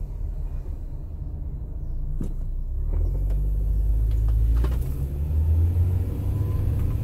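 Low engine and road rumble heard inside the cabin of a 2002 Mini Cooper creeping along at about 10 mph in drive, with a couple of brief knocks. The transmission is not shifting up.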